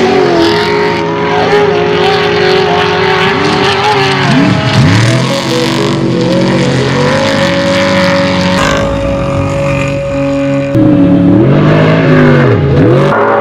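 Trophy truck engine racing over an off-road course, the revs repeatedly dropping and climbing again as the driver lifts and gets back on the throttle. The sound jumps abruptly in loudness about eleven seconds in.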